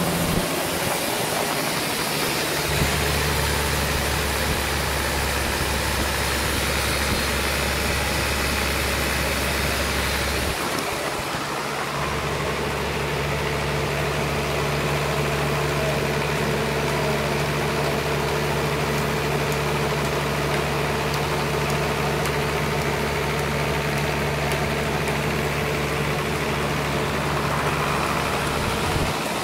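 Sawmill engine running steadily, its low hum changing pitch about three seconds in and again around eleven seconds in.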